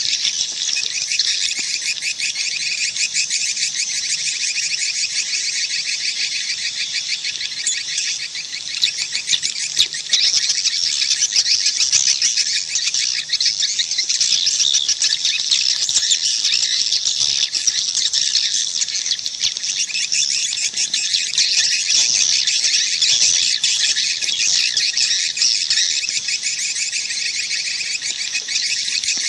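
Many swiftlets twittering together, rapid high chirps overlapping without a break. This is a swiftlet calling sound, the kind played to draw swiftlets into a nesting house.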